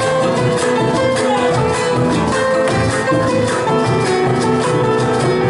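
Folk music with strummed guitar playing a steady rhythm.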